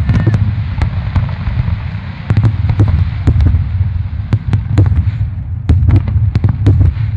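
A fireworks display with aerial shells bursting in quick succession: the overlapping booms blend into a continuous low rumble, and many sharp cracks ring out over it in clusters.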